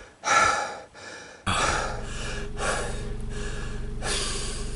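A long, heavy sigh, then the steady drone of a car's engine heard from inside the cabin. A few more loud breaths come over the drone.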